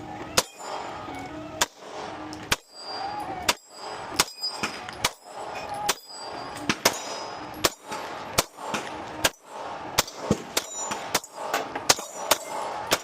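9mm pistol fire: about twenty shots in uneven strings, some fired in quick pairs, several followed by a short, high ring.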